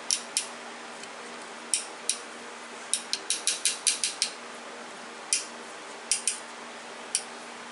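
Sharp metallic clicks from a thread tap being turned by hand in a T-handle tap wrench, cutting threads in a steel pin. The clicks come irregularly, several in a quick run partway through, over a faint steady hum.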